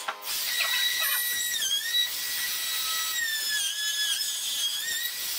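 Makita 18 V cordless trim router running at speed with a biscuit-slot cutter, cutting a slot in an oak handrail for a number 10 biscuit: a high whine that sags in pitch twice as the cutter bites and then recovers.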